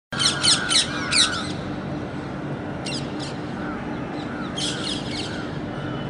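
Parrots squawking: a quick run of four harsh calls at the start, a pair about three seconds in, and another run near five seconds, with softer chirps repeating about twice a second underneath.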